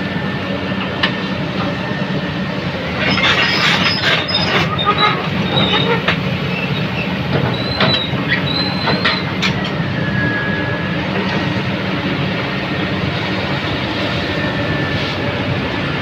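Komatsu PC200 excavator's diesel engine running steadily under load, with metal clanks and high-pitched squeals from the machine's steel parts about three to five seconds in and again around eight to nine seconds.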